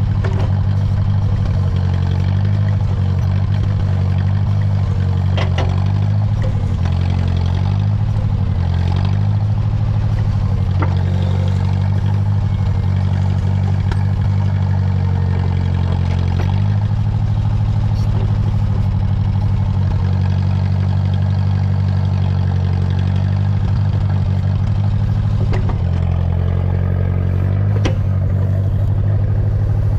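International Harvester 300 Utility tractor-backhoe's gasoline engine running steadily while digging, its pitch shifting several times as the load changes, with a few sharp clanks. The engine is running super rich, by the operator's account.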